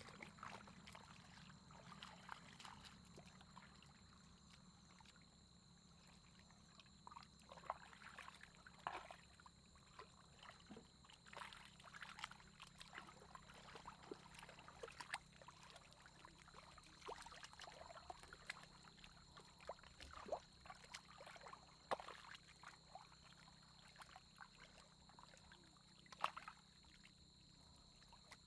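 Faint, irregular splashing and sloshing of hands groping through shallow muddy water, with small splashes coming every second or so.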